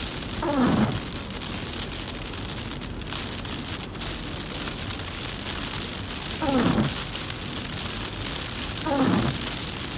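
Heavy rain hitting a car's windshield and body, heard from inside the car as a steady hiss, while the windshield wipers sweep across the wet glass three times, each stroke a brief, louder sound falling quickly in pitch.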